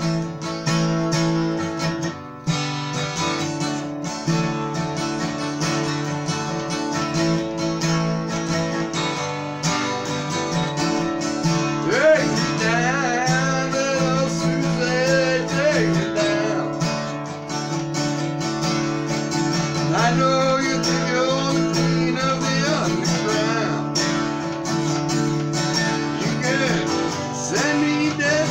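Acoustic guitar strummed steadily, with a man singing along in stretches, from about twelve seconds in, again around twenty seconds, and near the end.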